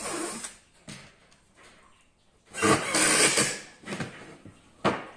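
Wooden boards scraping and knocking: a few short scrapes, one long loud scrape about halfway through, then a sharp knock near the end.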